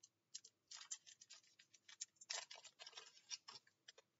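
Faint, irregular crinkling and crackling of a foil trading-card pack wrapper handled in gloved hands, in short scratchy bursts.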